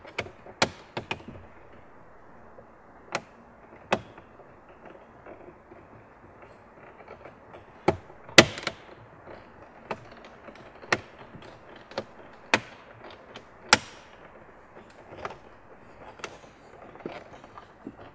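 Plastic dashboard trim clips on a B8.5 Audi S4 snapping into place as the trim panel is pressed home: about a dozen sharp, separate clicks at uneven intervals, the loudest about eight seconds in.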